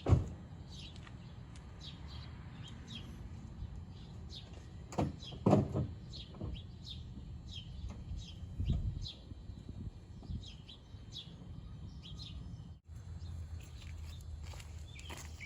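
Small birds chirping in short repeated calls, over a low steady background rumble. A few dull knocks stand out: one right at the start, two close together about five seconds in, and a softer one near nine seconds.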